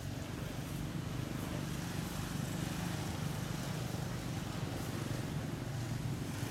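Steady low drone of a motor vehicle's engine, slowly growing louder.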